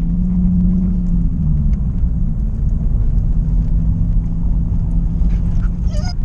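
Nissan 350Z's V6 engine and tyre rumble heard from inside the cabin while driving at a steady speed: a continuous low drone with a steady engine note.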